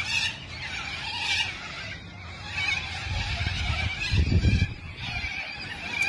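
A large flock of cockatoos screeching, many harsh calls overlapping. A low rumble rises over the calls about three seconds in and fades out about two seconds later.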